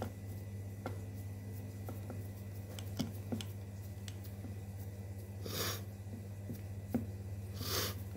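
Fingers pressing pie dough into a metal tube pan, with a few light clicks against the pan, over a steady low hum. Two short breaths close to the microphone come about halfway through and near the end.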